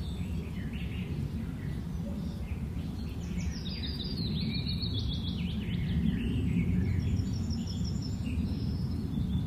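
Birds chirping and singing in quick, overlapping calls over a steady low background rumble, the birdsong busiest a few seconds in.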